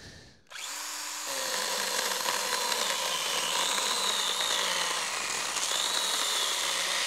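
Stihl GTA 26 battery mini chainsaw starting about half a second in, then cutting through a thick dry elm log, its electric motor whine wavering in pitch as the chain bites into the hardwood.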